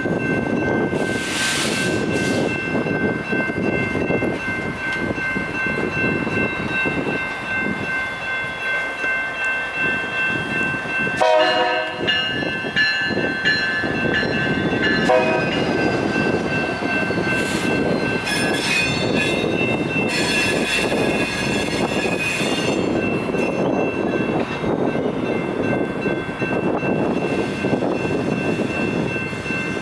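Railroad grade crossing with its warning bell ringing steadily as a train rolls through, its wheels and cars making a continuous rumble. The train's horn sounds briefly about eleven seconds in and again for a moment about fifteen seconds in.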